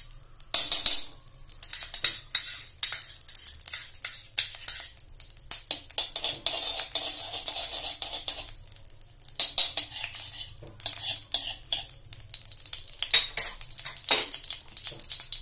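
A metal spoon clinking and scraping against a bowl and the inside of a kadhai as ghee is scooped into the hot pan, with many sharp clinks and a loud clatter about half a second in. Soft hissing in the middle as the ghee melts and starts to sizzle.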